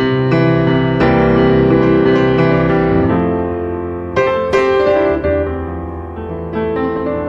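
Background piano music: a slow piece of struck notes and chords that ring and fade.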